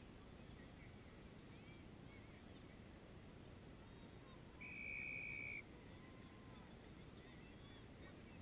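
A referee's whistle gives one steady blast, about a second long, roughly halfway through, over a faint low rumble and faint far-off shouts.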